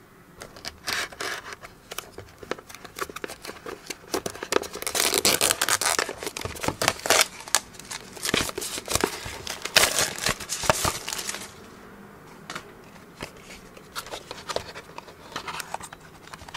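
Plastic shrink wrap crinkling and tearing as hands peel it off a cardboard earphone box, with scratching of fingers on the box. The crackling is busiest through the middle and thins to scattered clicks and rustles over the last few seconds.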